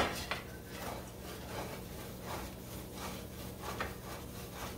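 A utensil scraping and stirring in a skillet as flour is worked into hot oil for a roux gravy, with faint, irregular scrapes every half second or so. A single sharp knock comes right at the start, over a low steady hum.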